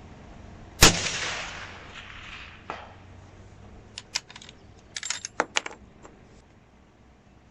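A single rifle shot from a Remington 700 bolt-action rifle, about a second in, with an echo rolling away over about a second and a half. It is followed by a click and then a quick run of sharp metallic clicks from the bolt being worked.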